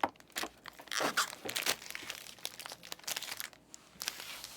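Packaging being crumpled and torn by hand: irregular crinkling and crunching in short spurts.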